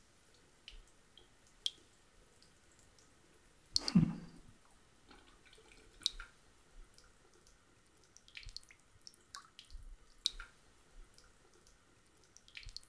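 Water dripping: single drops falling at irregular intervals, one louder drop with a low plop about four seconds in.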